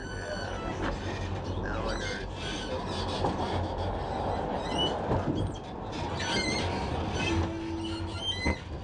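Amsterdam tram running along its rails, heard from inside the car: a steady rumble of wheels and motors, with a few brief high squeaks from the wheels.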